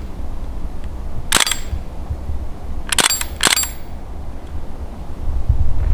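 CO2-powered BB replica rifle firing three sharp single shots, the first about a second and a half in, then two close together about three seconds in.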